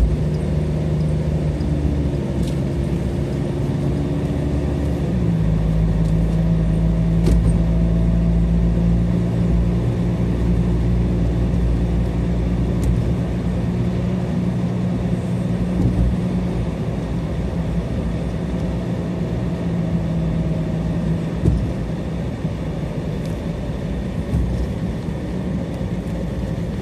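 Car engine and road noise heard inside the cabin while driving, a steady low drone. It steps up in pitch and loudness about five seconds in and drops back about twenty-one seconds in.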